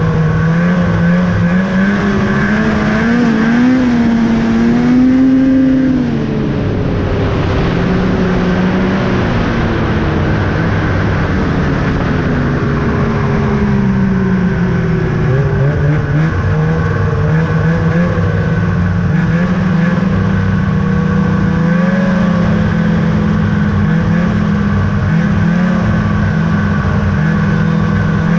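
2000 Ski-Doo Summit 800's two-stroke twin engine running on the trail. The revs climb a little around three to five seconds in and drop as the throttle eases off at about six seconds. They then sink slowly for about ten seconds before picking back up and holding steady.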